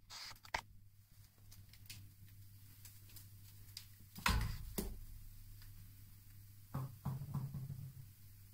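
A tennis ball knocking and bouncing on hard stair treads while a dachshund plays with it, with light clicks of its claws on the steps. One loud thud comes about four seconds in and a run of softer thuds near the end.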